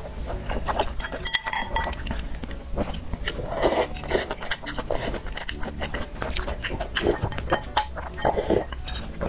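Close-up eating sounds: chewing, then loud slurps of a green vegetable and broth from a glass bowl, and sips of the broth, with small clinks of chopsticks and the glass bowl.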